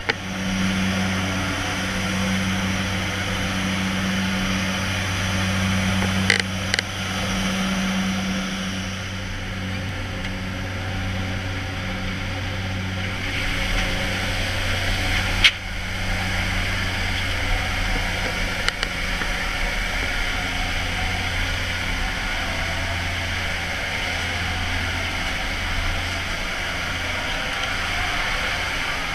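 Steady drone of a jump plane's engines and propellers heard inside the cabin: a low hum under a hiss of rushing air. The rushing air grows louder about thirteen seconds in, with the side door open, and a few short sharp knocks come around six seconds and again around fifteen seconds.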